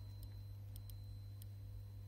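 Geiger counter clicking through a bare piezo disc: four sharp ticks at irregular intervals, each one a registered count. A steady low electrical hum runs underneath.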